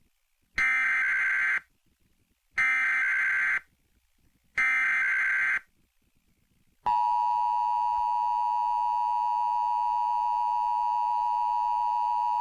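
Emergency Alert System SAME header: three one-second bursts of digital data tones, a second apart. About seven seconds in, the steady two-tone EAS attention signal starts. Together they mark the start of an emergency alert, here a winter storm warning.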